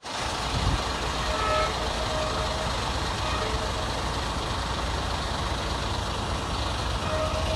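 Steady outdoor road-traffic and wind rumble, with a few brief faint beeps like distant vehicle horns.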